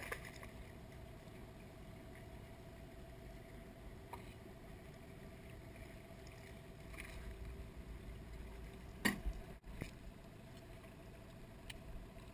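A low steady rumble with a faint hum, then one sharp knock against the aluminium boat about nine seconds in, with a few lighter clicks earlier.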